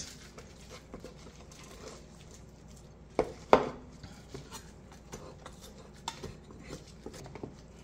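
Faint knife-on-cutting-board work: a chef's knife cutting and scraping smoked beef rib meat off the bone on a wooden board, with small taps and scrapes throughout. Two sharper knocks come about three seconds in, as the knife meets the board.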